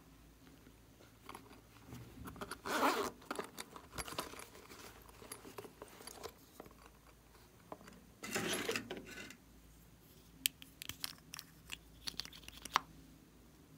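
Hands handling a plastic piping bag and a soft squishy toy: two short noisy bursts about six seconds apart, then a run of small sharp clicks and taps.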